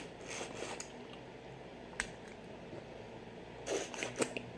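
Quiet eating sounds from a person eating boiled shrimp and crawfish: a sharp click at the start, another about two seconds in, and a short cluster of wet clicks and smacks near the end.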